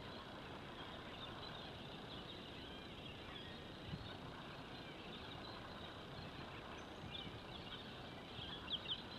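Quiet outdoor ambience: a steady low background hiss with faint bird chirps scattered through, a little livelier near the end, and one soft tap about four seconds in.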